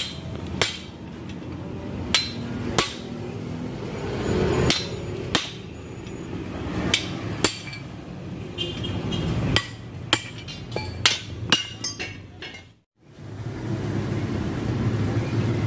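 A steel hammer striking a punch held against a car's steel leaf spring pack: about a dozen sharp metallic blows with short ringing, irregularly spaced and coming faster toward the end.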